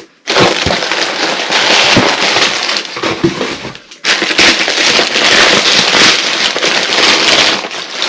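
Packaging crinkling and crackling loudly close to the microphone as a folded camp chair is pulled out of its shipping box, in two long stretches with a brief pause about four seconds in.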